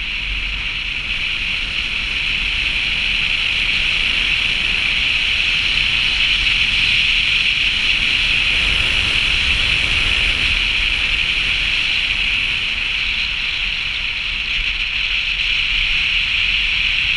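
Steady rush of wind and tyre noise from a car driving down a snow-covered highway, with a low rumble under a strong hiss, rising a little over the first few seconds.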